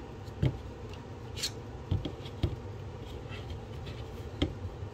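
Glock 37 pistol magazines and a hard plastic gun case being handled: a few short, sharp plastic clicks and knocks as the magazines are lifted out and set down, with a brief rub in between, over a low steady hum.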